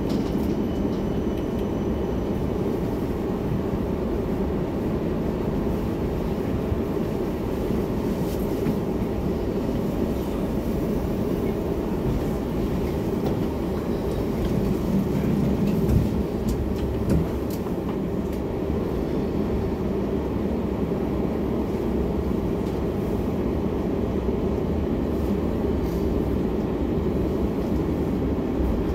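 Helsinki tram rolling slowly along street track, heard from inside the car: a steady low rumble of wheels on rails and running gear. A couple of short knocks come a little past halfway.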